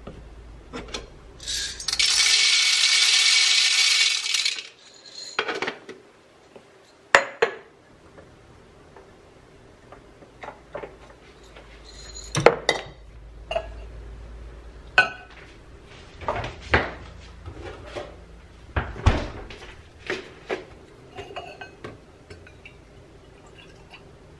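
Espresso-making clatter: a loud rush of noise lasting about three seconds near the start, then a string of sharp knocks and metal and ceramic clinks as the coffee tools and cups are handled.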